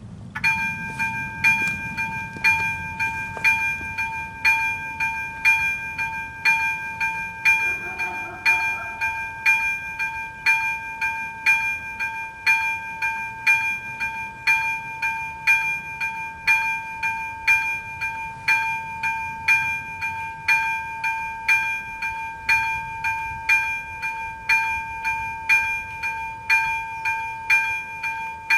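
AŽD71 level-crossing warning signal's second-generation electronic bell switching on and ringing steadily, about one ring a second: the crossing has activated for an approaching train.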